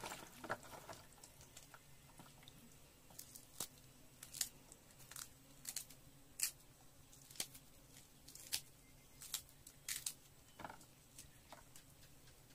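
Fresh green chilies broken into pieces by hand: a series of short, crisp snaps about once a second.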